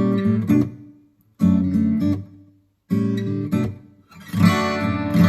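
Acoustic guitar strumming an instrumental break: three chords struck about a second and a half apart, each left to ring and die away, then steady strumming from about four seconds in.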